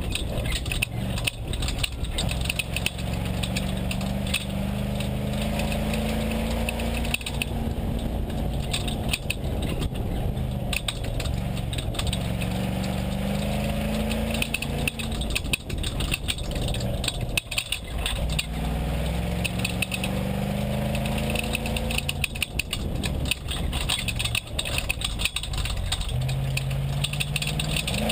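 A Lexus LX570 race truck's 5.7-litre V8, heard inside the cab, runs hard, its note climbing again and again as it accelerates. Over it comes a constant clicking and rattling racket from the King shocks at the rear.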